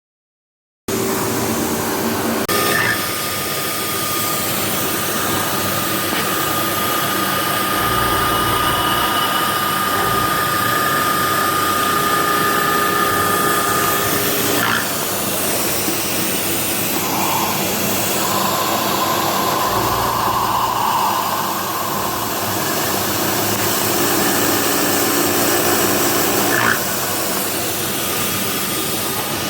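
CNC milling machine running steadily, with a thin high whine in the first half.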